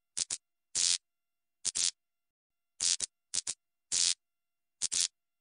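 Electric buzz and crackle of a neon sign flickering on: a string of short, irregular bursts of static-like hum, each cutting off into silence.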